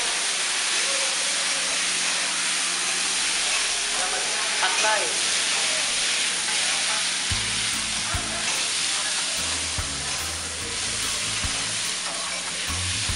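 Food frying on a large round flat-top griddle as a chef stir-fries noodles with metal spatulas: a steady, loud sizzling hiss that starts at once.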